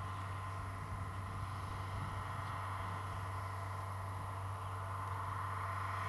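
Irrigation pump truck's engine running steadily with an even low drone, mixed with wind blowing through sugarcane leaves.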